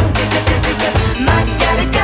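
Background music with a quick, steady drum beat, bass and instruments; no singing.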